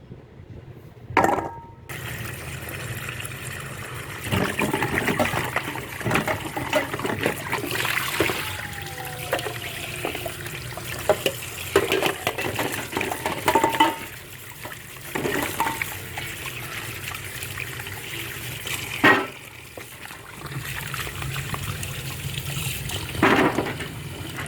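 Water running and splashing steadily, with repeated knocks and clatter from containers being handled.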